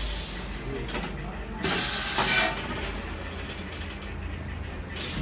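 Pneumatic hot-fix stone-setting press: a short burst of compressed-air hiss about two seconds in as the air cylinder drives the heated plate down onto the fabric, with the tail of another hiss right at the start, over a steady low hum.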